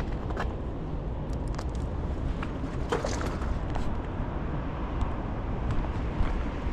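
Steady low rumble of outdoor city background noise, with scattered light clicks and taps.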